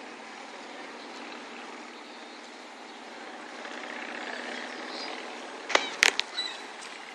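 Steady outdoor background rush with a few faint bird chirps, broken about six seconds in by three quick sharp knocks, the loudest sounds here.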